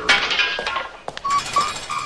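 Cartoon sound effects: a sharp crash with a clatter lasting about half a second, then, a little past the middle, a run of short, evenly spaced beeps, about three a second.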